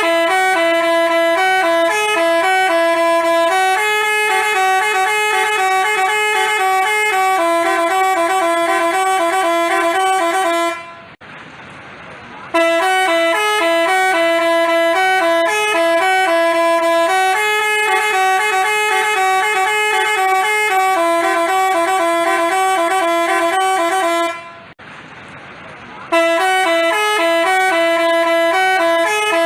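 Basuri telolet bus horn playing its multi-note tune over and over. It breaks off twice for about a second and a half, then starts the tune again.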